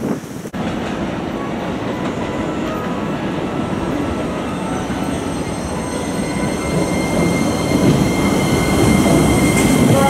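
Keikyu 1000-series electric commuter train pulling into a station platform. Its running noise grows louder as it comes in, with faint steady high tones over it.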